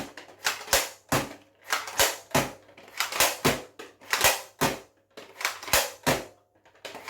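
A Nerf foam-dart blaster fired over and over, a sharp snap about twice a second, emptying its magazine.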